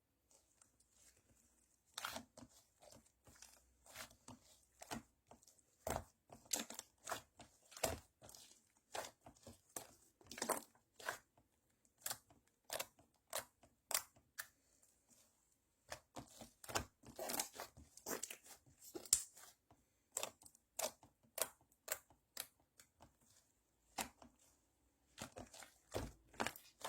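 Slime being squeezed and stretched by hand, giving quick irregular sticky clicks and pops, several a second, that start about two seconds in.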